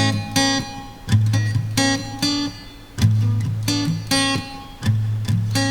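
Acoustic guitar music: strummed chords over a steady bass note, in a pattern that repeats about every two seconds.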